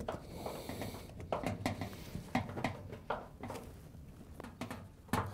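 Light, irregular clicks and scrapes of screws being driven by hand with a Phillips screwdriver into the sheet-metal bottom edge of a front-load washer's front panel.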